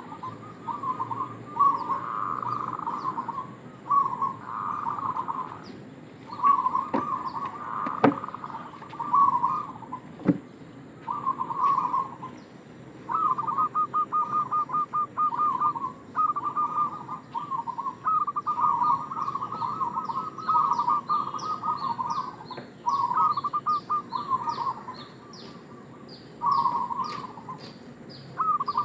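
Zebra dove (perkutut) cooing: a run of short, rolling, trilled coo phrases repeated one after another with brief pauses between them.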